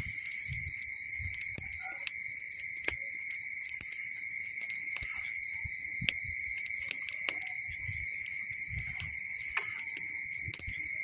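A steady high-pitched chorus of night insects, with scattered short clicks and scrapes of a knife shaving and splitting bamboo strips.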